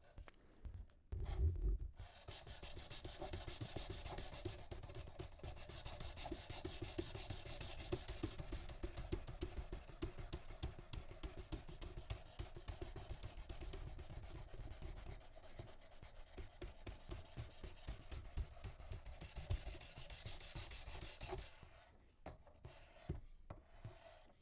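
Knife edge being drawn back and forth over an oiled diamond sharpening stone in a guided sharpening system, a rapid continuous scraping that starts about two seconds in and stops shortly before the end. The stone is grinding a fresh edge to raise a burr.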